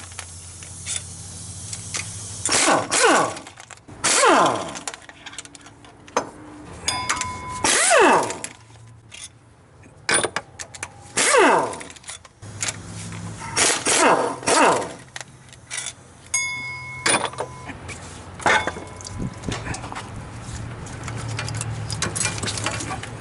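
Cordless power tool running the water pump's 10 mm bolts out of a Chevy 5.3L LS engine in about seven short bursts, each winding down in pitch as the motor stops.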